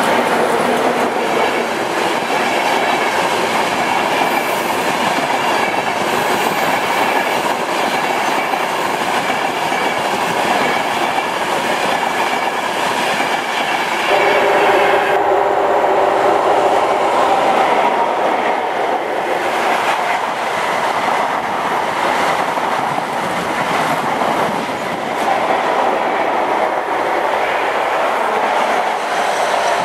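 East Coast InterCity 225 electric train (Class 91 locomotive and Mark 4 coaches) passing at speed: a continuous loud rush of wheels on rail with clickety-clack over the rail joints. About halfway through the sound shifts, and a steady hum rises over the rush.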